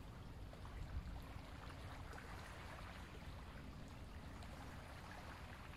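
Faint, steady rush of flowing water, with a low rumble underneath.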